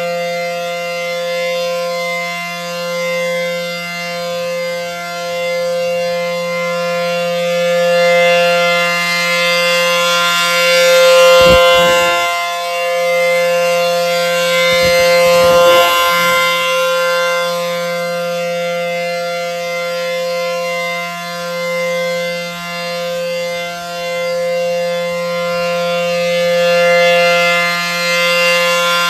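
ACA P-10 Penetrator dual-tone outdoor warning siren sounding a steady tone, its two held pitches rising and falling in loudness every few seconds as the rotating siren head sweeps past.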